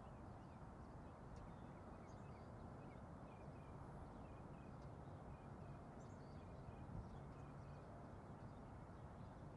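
Faint, steady low rumble of a distant McDonnell Douglas DC-10-10's three General Electric CF6-6 turbofans at taxi power, with a bird chirping repeatedly in short notes over it.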